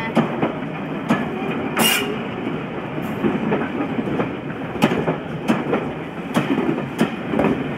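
Train of vintage passenger coaches rolling slowly out of a station, with a steady rumble and the wheels clacking over rail joints every half-second to second.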